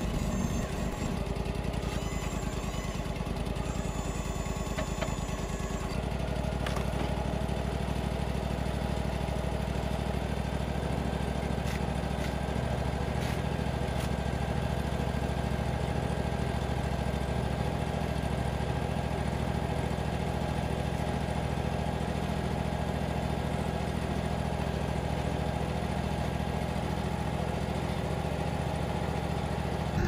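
Wood-Mizer sawmill's engine running steadily, its note shifting about six seconds in and then holding.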